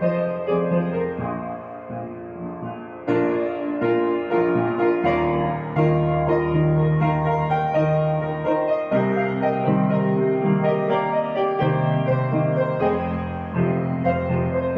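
Background piano music, gentle and classical-sounding, growing louder about three seconds in.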